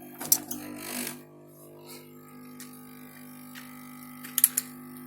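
Steady hum of a powered-up motherboard test bench. A hiss stops about a second in, and there are a few light clicks, three close together near the end.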